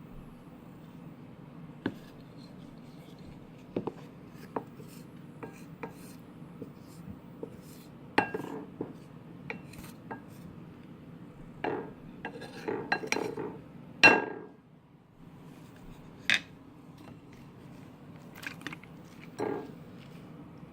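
Utensil clinking and scraping against a bowl or container as slime ingredients are mixed: scattered sharp clicks and short clatters, the loudest about 14 seconds in, over a steady low background hum.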